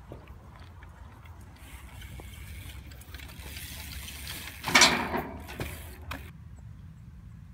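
BMX bike tyres rolling and scuffing over dirt and dry leaves, building to one loud scuff a little under five seconds in that dies away and stops abruptly about a second and a half later. Wind rumbles on the microphone underneath.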